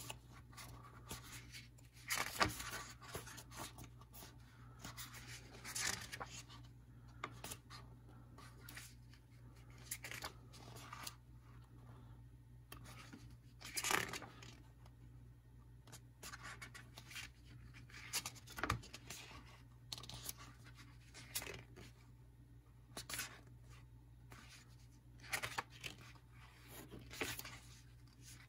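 Pages of a printed paperback booklet being turned by hand, one after another, each turn a short paper rustle or flap at an uneven pace, the louder ones about two, six, fourteen and nineteen seconds in. A faint steady low hum runs underneath.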